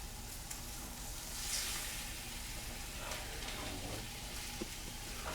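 Omelet of eggs, cheese and ham sizzling softly in a buttered frying pan over a low flame, a steady hiss that swells briefly about a second and a half in, with a few faint ticks.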